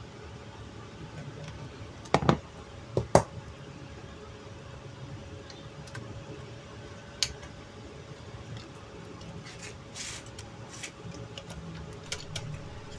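Hand tools clicking and knocking against a laptop's metal hinge and plastic base while a hinge screw with a stripped plastic thread is worked loose, likely with pliers. There are a few sharp clicks about two and three seconds in, another about seven seconds in, and lighter ticks near ten seconds. A faint steady hum runs underneath.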